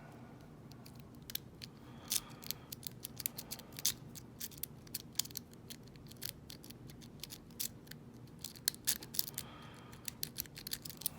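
A lock pick rake scrubbing back and forth over the pins of a 5-pin ISEO euro cylinder lock: rapid, irregular metallic clicking and scraping. The lock does not open.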